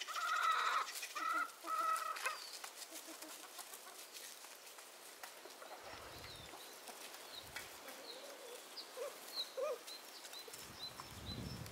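Free-range chickens clucking: three loud calls in the first two seconds, then softer scattered clucks with faint short high chirps.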